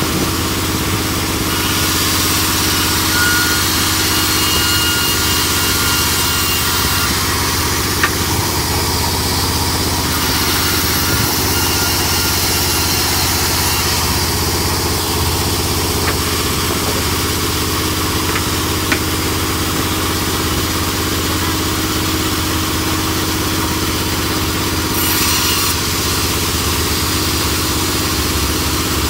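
Large sawmill band saw running, its blade ripping wooden planks lengthwise. It makes a steady machine hum under a continuous hiss.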